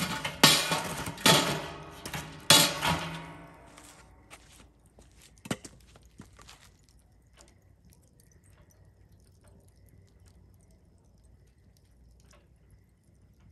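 Wood fire in a Solo Stove Bonfire fire pit. A hand feeds the fire at the start, and the first few seconds bring a burst of loud crackling and knocking. After that the fire settles to sparse, soft crackles and pops, with one sharper pop about five seconds in.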